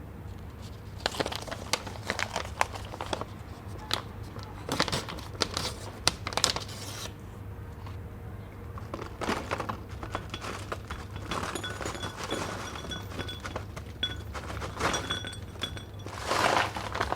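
Plastic snack packaging crinkling and rustling as it is handled and torn open, in irregular bursts of sharp crackles.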